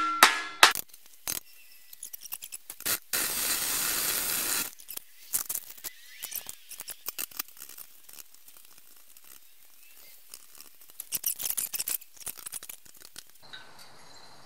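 A few ringing metal strikes on a steel I-beam at the start. About three seconds in comes a burst of hissing noise lasting a second and a half, then scattered small knocks and clicks of tools and steel being handled.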